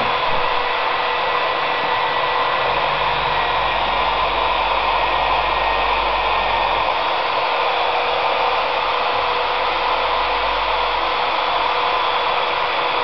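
A steady, fan-like rushing hiss with a few faint, steady whining tones in it.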